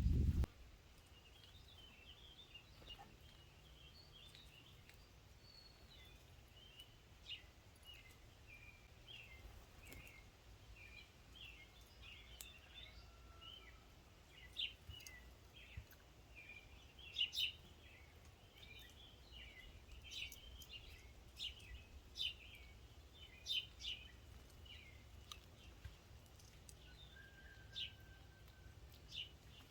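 Small birds calling faintly: a busy run of short chirps, with sharper, louder chip notes from about halfway through, over a faint low background rumble.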